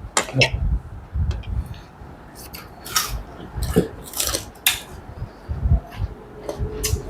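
A person chewing food, probably pork from a curry, close to the microphone: irregular wet clicks and smacks of the mouth, with a few low thumps.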